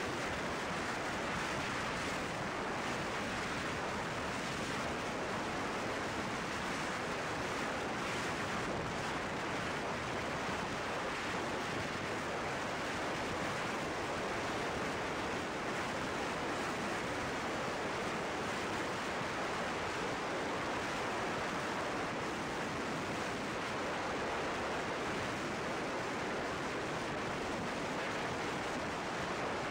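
Steady wind rush buffeting the camera's microphone on a motorcycle riding at speed, with no distinct engine note standing out.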